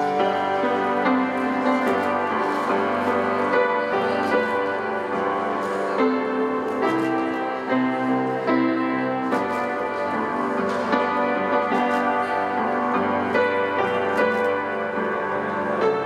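Piano music: a melody played over held chords, with notes changing about every half second.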